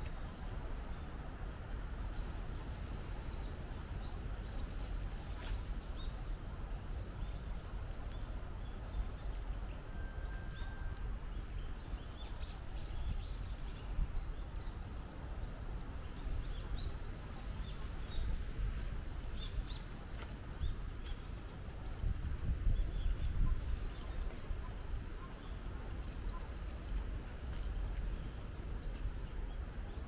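Wind buffeting the microphone as a steady low rumble that swells now and then, with birds chirping in short, scattered calls.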